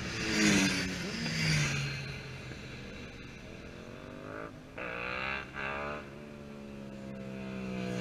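A motorcycle passes close at speed, its engine note dropping as it goes by. A few seconds later an engine note rises twice with short breaks, like a rider shifting up at a distance. Near the end, engine sound builds again as more motorcycles approach.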